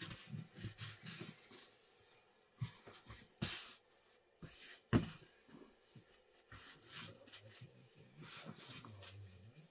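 A long, thin wooden rolling pin rolls out a large sheet of flatbread dough on a floured cloth, making soft, irregular thumps and rubbing. There are sharper knocks about three and a half and five seconds in.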